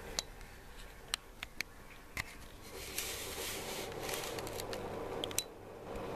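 A cat working dry kibble out of a plastic Catit Senses food maze: scattered sharp clicks and rattles of kibble and plastic, then from about three seconds in a denser stretch of scraping and rustling that stops suddenly about five and a half seconds in.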